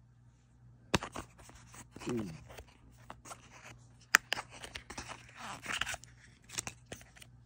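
Cardboard and paper packaging of an AirPods Pro box being handled while parts are pulled out of the inner tray: irregular scraping and rustling with several sharp clicks. The loudest click is about four seconds in, and a longer rustle follows near the end.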